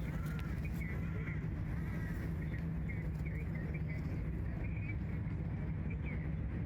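Faint birds chirping over a steady low rumble of outdoor background noise.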